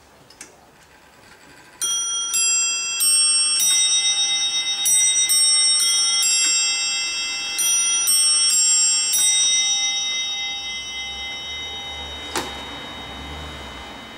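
Hampson of Warrington three-train longcase clock chiming on its bells: a quick run of about fifteen notes at different pitches over some seven seconds, set off by turning the minute hand. The notes then ring on and fade slowly, with a single click near the end.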